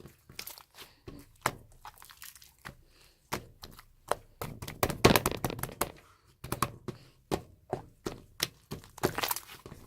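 Tough, stretchy slime being pressed and pulled by hand, giving off irregular clicks and pops. The pops come thickly about five seconds in and again near the end.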